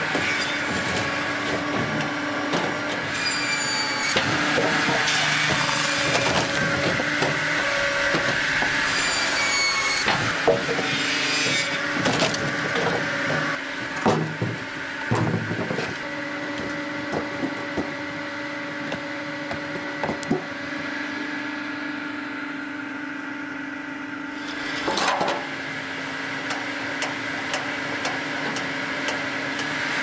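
Firewood processing machinery running with a steady motor hum, its saw cutting through logs with a high whine that comes in briefly a few times. Split pieces of firewood clatter and knock as they drop.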